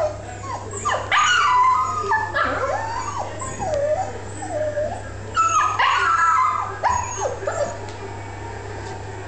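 Puppy whining and yipping: short, high rising-and-falling cries in repeated bouts that die away about eight seconds in.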